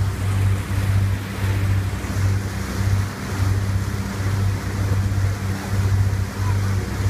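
Boat's engine running at cruising speed, a steady low drone that pulses about twice a second, over the hiss of the wake churning and wind on the microphone.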